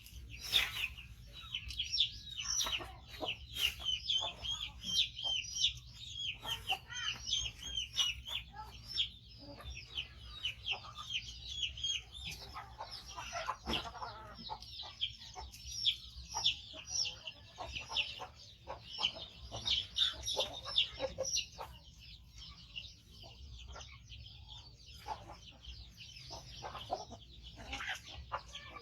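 Baby monkey calling loudly and insistently, a rapid run of short, high-pitched chirping cries, several a second, while waiting to be fed, with a few sharp clicks mixed in.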